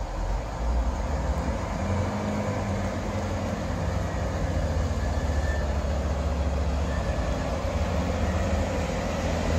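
British Rail Class 165 diesel multiple unit approaching, its diesel engines giving a steady low rumble that grows slightly louder as the train nears.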